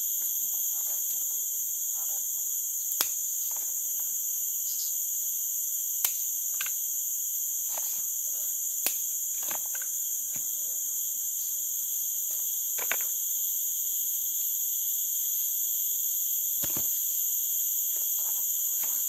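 Steady high-pitched chorus of insects, with about four sharp clicks scattered through it.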